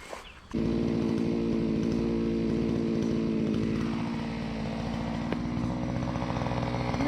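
Foresta FC-45 LX two-stroke petrol brush cutter engine running steadily at speed. It starts abruptly about half a second in, and its pitch sags briefly near the middle before steadying.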